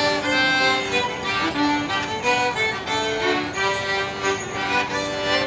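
Two fiddles and an accordion playing a traditional English folk dance tune for Border Morris dancing, the melody moving note to note at a steady dance pace.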